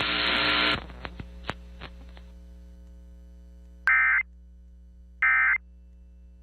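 Radio receiver hiss that cuts off under a second in, a few faint clicks, then two short warbling digital data bursts about 1.3 s apart over a steady electrical hum. These are Emergency Alert System end-of-message (EOM) tones closing a broadcast warning.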